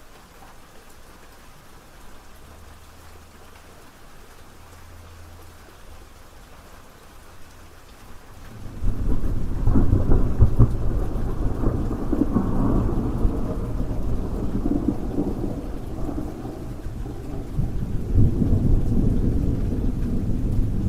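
Steady rain, then a long roll of thunder that comes in suddenly about eight seconds in, much louder than the rain, rumbling on and swelling again near the end.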